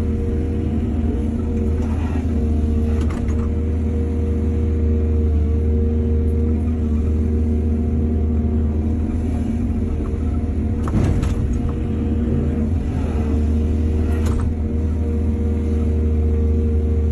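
Excavator's diesel engine running steadily under load, with a few short knocks from the machine working as it loads soil onto a truck.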